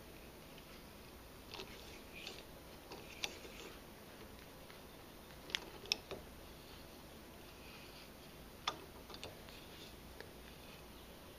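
A 1/4-18 NPT pipe tap being turned by hand into a port in a Saginaw power steering gearbox housing, cutting threads: faint scraping with a handful of sharp clicks and creaks scattered through, four of them louder than the rest.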